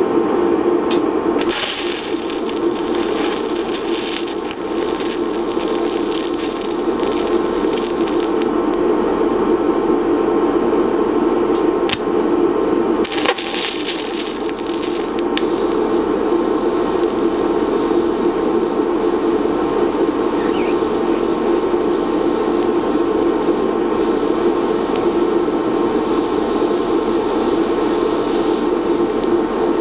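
Lift-start TIG welding arc on steel hissing steadily from about a second and a half in, dropping out briefly a few times, over a steady low drone.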